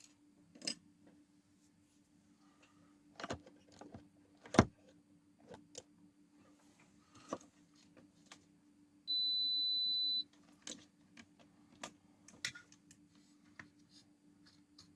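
A digital multimeter's test beep: one steady high tone about a second long, midway through. Light scattered clicks and taps come before and after it, over a faint steady low hum.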